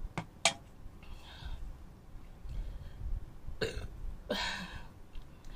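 Aluminium soda can set down on a plastic tray with two sharp clicks, then, after a swallow of cola, two short throat sounds from the drinker about three and a half and four and a half seconds in, the second louder.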